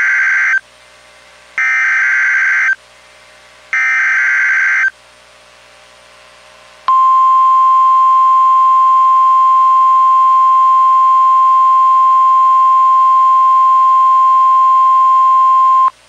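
NOAA Weather Radio emergency alert: the end of one burst and then two more short bursts of buzzy SAME digital header data, about a second apart, carrying a tornado warning. About seven seconds in, the steady single-pitch 1050 Hz warning alarm tone sounds for about nine seconds and cuts off just before the end.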